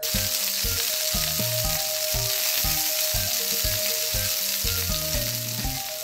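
Steady sizzle of food frying in a pan, cutting in suddenly and holding level, played as toy sausages are cooked in a toy frying pan, over light background music.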